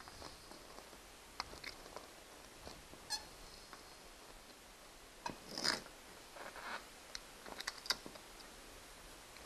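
Scattered light clicks and scrapes of a fish tape and cable being handled and worked through a drywall cavity. The loudest come a little past halfway and again near the end.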